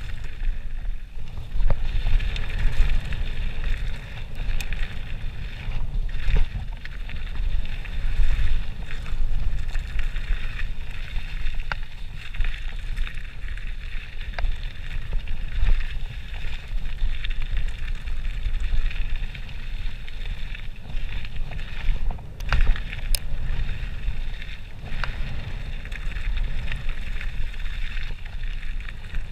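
Mountain bike descending a gravel trail at speed: wind buffeting the microphone over tyre noise on the gravel, with occasional sharp clicks and knocks from bumps.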